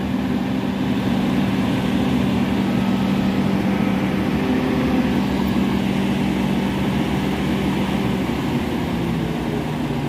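Diesel engines of a truck-mounted concrete boom pump and a Mercedes-Benz transit mixer running steadily while the pump operates, a continuous drone.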